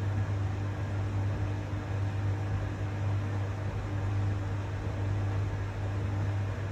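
Logik LVD7W18 vented tumble dryer running a drying cycle: a steady low hum over an even rush of air from its motor and fan.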